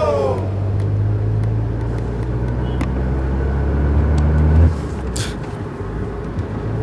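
Low steady drone of a car being driven, heard from inside the cabin. The drone drops away suddenly about two thirds of the way through, leaving a fainter hum and a brief hiss.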